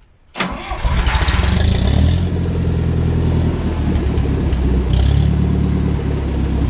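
Small farm tractor engine starting: a click, a short crank, then the engine catches about a second in and settles into a steady idle, with a brief rise in revs around five seconds in.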